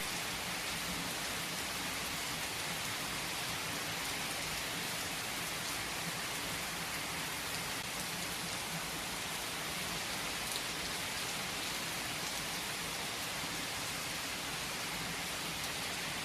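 Steady rain falling: an even hiss of rain with no breaks.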